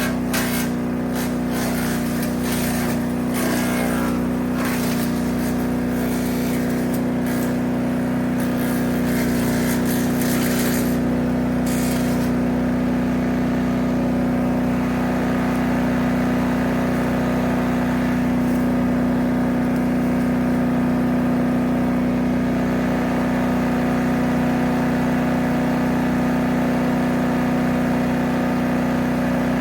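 Engine of a 3-inch wood chipper running steadily. Through roughly the first twelve seconds it crackles and clatters irregularly as brush is chipped, then it runs on smoothly.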